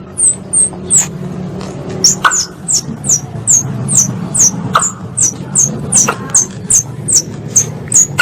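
Squirrel (tupai) lure call: a run of short, high, downward-sliding chirps about three a second, with a short break about a second in, over a low steady hum.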